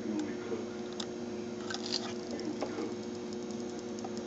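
Soldering iron melting solder on circuit-board joints: faint crackling and sizzling of the flux, thickest about two seconds in, over a steady electrical hum.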